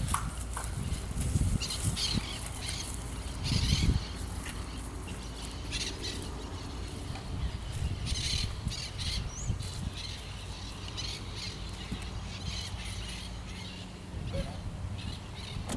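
Outdoor ambience: wind rumbling on the microphone, heaviest in the first few seconds, with footsteps and rustling through grass and dirt and a few bird calls.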